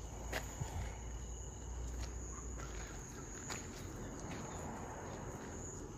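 Insects calling in one steady high-pitched tone, with a few light clicks and crunches over it.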